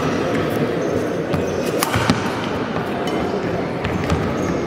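Badminton rackets striking a shuttlecock in a doubles rally: a string of sharp, short hits about every half second to second, over the steady murmur of a crowded indoor hall.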